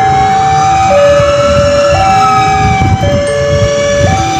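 Railway level-crossing alarm sounding its two-tone hi-lo warning, switching between a higher and a lower tone about once a second, the signal that a train is about to pass. A low rumble runs underneath.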